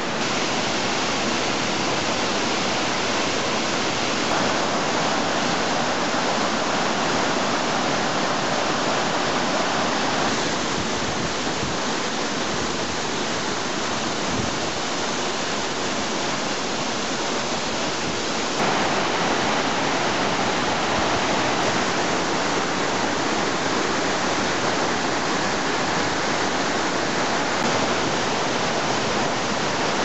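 A waterfall about 22 m high and 6 m wide, rushing steadily down a rock face onto rocks. The level steps up or down slightly and abruptly a few times, at about 4, 10 and 18 seconds in.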